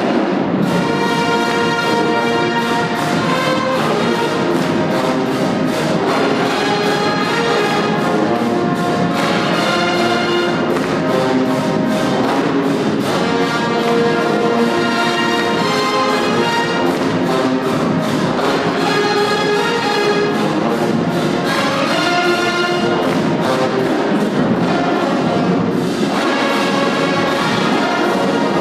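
College marching band playing loudly, with trumpets, saxophones, clarinets, flutes and sousaphones together.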